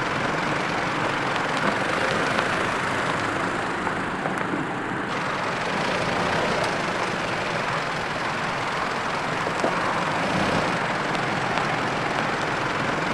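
Mitsubishi Pajero SUV crawling slowly over an off-road course: steady engine and tyre noise with a few light clicks of gravel. The hiss thins for a moment and comes back abruptly about five seconds in.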